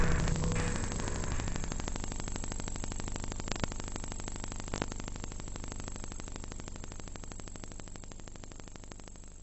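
Dense crackling static fading out slowly and evenly, with two louder clicks about three and a half and five seconds in.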